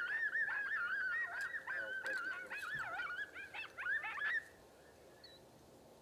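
A chorus of coyote yips and wavering howls, many voices overlapping. It breaks off abruptly about four and a half seconds in.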